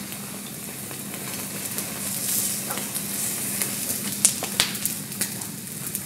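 Small fire of dry leaves and twigs crackling and hissing, with a few sharp pops a little after the middle.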